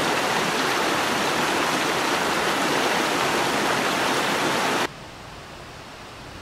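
Shallow rocky mountain stream rushing over stones, a steady full rush of water. About five seconds in it cuts off abruptly to a much quieter steady hiss.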